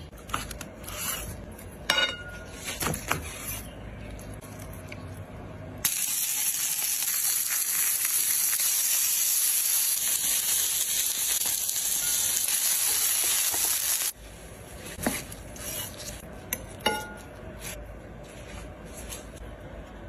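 Chicken breasts searing in a hot pan: a steady loud sizzle that starts abruptly about six seconds in and cuts off suddenly about eight seconds later. Before and after it, light knife taps and clicks on a wooden cutting board and plate.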